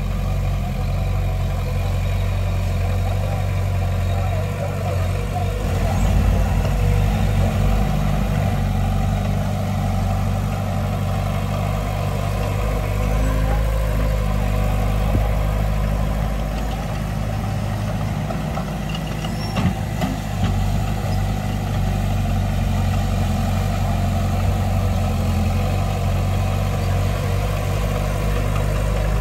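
Diesel engine of a Komatsu D31P crawler bulldozer running steadily. It swells a little about six seconds in, and a couple of short knocks come about two-thirds of the way through.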